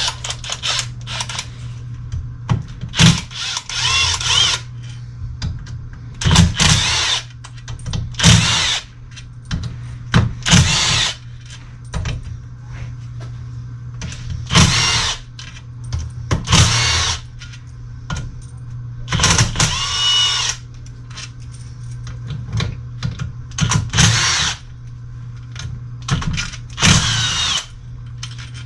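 Power drill fitted with an 8 mm socket running bolts on a transmission in about ten short bursts a few seconds apart, its motor whine rising or holding steady in each burst.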